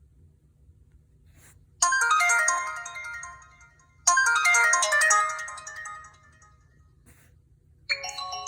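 Samsung Epic 4G (SPH-D700) smartphone playing a ringtone through its speaker: a short, bright chiming melody sounds twice, about two seconds apart, fading out each time. Near the end a different ringtone starts.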